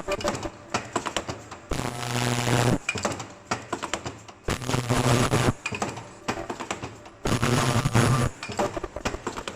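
Automatic face mask machine running, with rapid metallic clicking and clinking throughout and a low buzzing hum of about a second that recurs every few seconds in a steady cycle.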